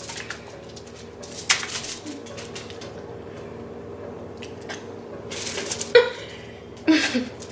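Crab shells being cracked and pulled apart by hand, with scattered sharp cracks and crackles: one about a second and a half in, and a busier cluster near the end.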